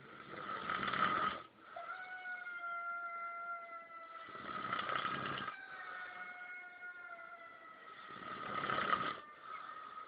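A sleeping boy snoring heavily, three loud snores about four seconds apart.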